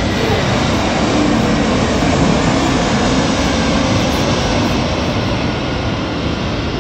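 Airplane on its landing approach passing low overhead, its engine noise swelling to a peak about two seconds in and then slowly fading.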